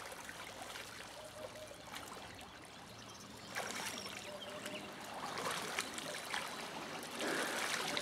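Shallow river running and trickling over a gravel bar, with bursts of splashing in the second half from ducks and geese bathing in the water.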